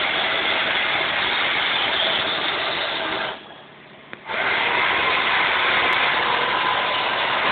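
Steady, loud hissing machine noise with a faint hum in it. It drops away for about a second a little over three seconds in, then starts again.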